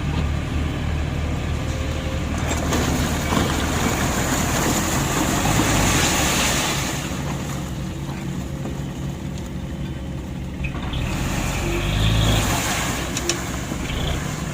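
A heavy diesel engine runs steadily throughout. A rushing noise swells for a few seconds partway through, and scattered knocks come near the end.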